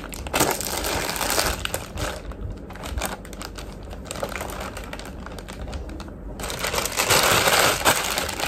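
Clear plastic bag crinkling and rustling as it is handled and pulled off a plush pillow. It is loudest in the first couple of seconds and again near the end, and quieter in between.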